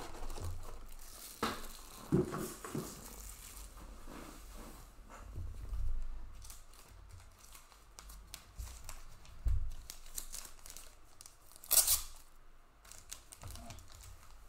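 Plastic and paper trading-card packaging crinkling and tearing as it is handled, with a few soft knocks and one short, louder crackle late on.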